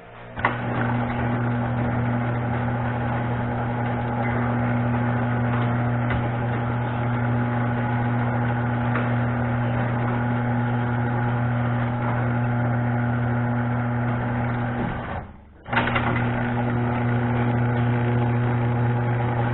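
Craftsman chain-drive garage door opener motor running steadily as it lowers the door. About 15 seconds in it stops, and half a second later starts again as the opener reverses the door back up: the down travel is set too far, so the door hits bottom and backs up.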